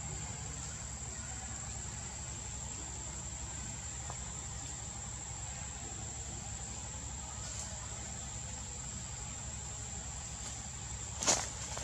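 Steady, unbroken high-pitched insect trill, one thin held tone, with a sharp click near the end.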